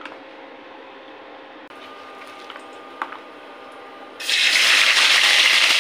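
Chopped onions hitting hot oil in a kadai on an induction cooktop, setting off a loud, steady sizzle about four seconds in. Before that, only a faint background hum and a single click.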